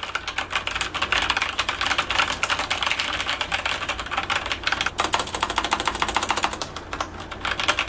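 Corsair STRAFE mechanical keyboard with Cherry MX Red linear switches being typed on fast and continuously: a dense, even clatter of keystrokes with a crisp, scratchy 'seogeok-seogeok' character.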